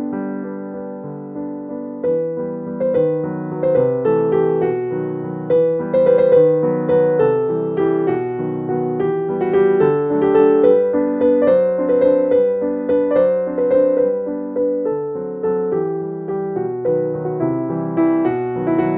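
Piano background music: a steady run of notes, each struck and then fading.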